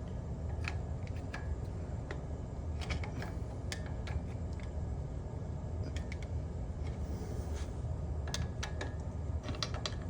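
Scattered light metallic clicks and ticks of a big flathead screwdriver prying and tapping at a stuck main bearing cap on a Mazda Miata engine block, over a steady low hum.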